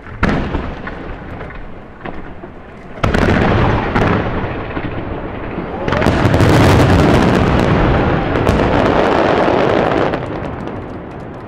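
Aerial firework shells bursting in a barrage. There is a sharp boom just after the start, a heavier burst about three seconds in, and a dense run of booms and crackles from about six to ten seconds in that rumbles on before dying away.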